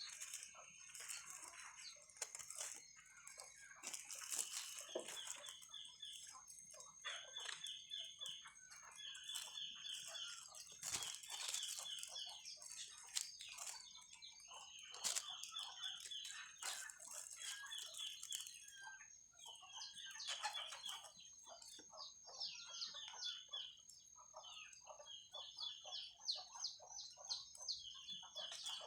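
Chickens and other birds calling: short phrases of quick high notes repeated every second or two, with clucking, over a steady thin high tone.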